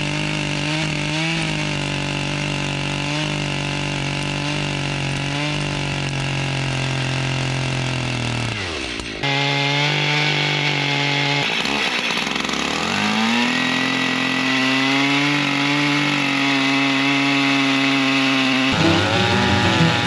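A 120 cc Stihl chainsaw with a 36-inch bar and ripping chain runs at high revs, ripping lengthwise through a large white oak log. About nine seconds in, the sound jumps suddenly to another stretch of cutting. There the engine speed sags and then climbs back to a steady high pitch.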